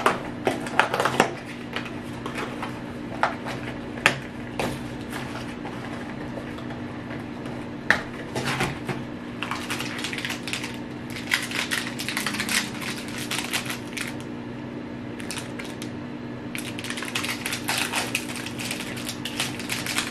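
A cardboard snack box and a wrapped snack bar being opened by hand: irregular crinkling, rustling and sharp clicks of packaging, in several busy spells.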